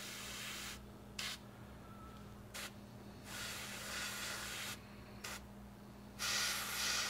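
Airbrush spraying paint in hissing bursts: three longer passes of about a second each, with brief puffs between them. A steady low hum sounds underneath.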